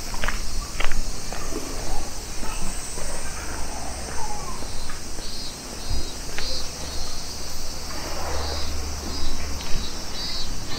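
Insects trilling steadily at dusk, with a repeating high chirp from about halfway on. A steady low rumble runs underneath, and a few sharp clicks, likely footsteps, come near the start.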